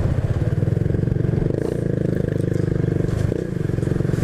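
Honda Biz 125's single-cylinder four-stroke engine running steadily while riding, its note breaking briefly twice: about a second and a half in, and again past three seconds.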